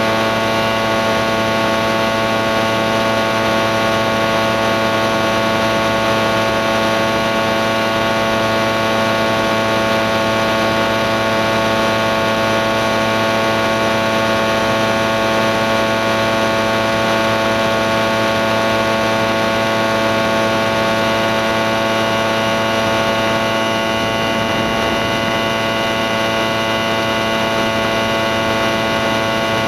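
Doodle Bug powered hang glider's engine running steadily in flight, one unchanging drone with a hiss of wind over it.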